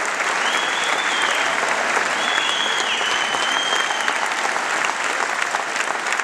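Concert audience applauding steadily, with a couple of long high whistles rising above the clapping about half a second and about two seconds in.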